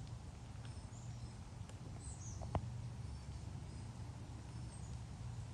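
Outdoor ambience with a steady low rumble, a few faint high bird chirps, and a single sharp click about two and a half seconds in.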